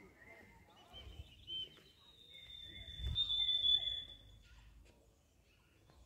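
Birds singing high whistled calls: short looping notes, then one long steady whistle about two seconds in that lasts about two seconds, over faint low rumble.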